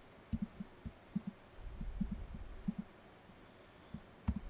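Soft, dull computer keyboard key presses, short taps often in pairs, about a dozen in all, as paste key combinations are tried.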